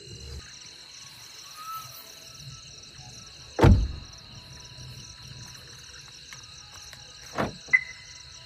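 A Maruti Suzuki Jimny's rear door shut with a heavy thump, then a few seconds later the car locking: a clunk from the locks and a short beep, over steady chirping crickets.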